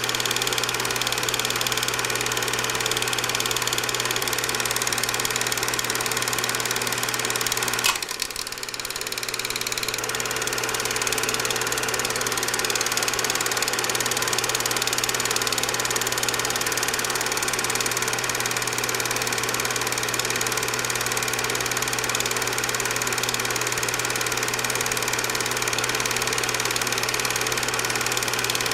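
Cine projector running: a steady mechanical hum and whir, with a sharp click and a brief dip in level about eight seconds in.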